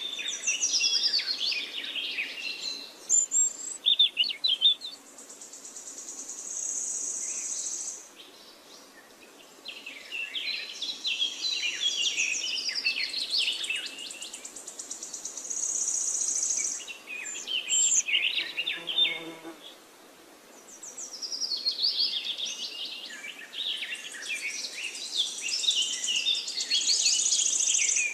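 Birdsong: birds chirping and trilling in repeated bursts, with long, thin, high whistles between them and short lulls about eight seconds in and again about twenty seconds in.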